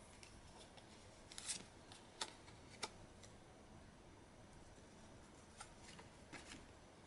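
Quiet handling of playing cards: a brief rustle and a few light clicks and snaps, two sharper ones a couple of seconds in, then fainter ticks near the end, over a low steady hiss.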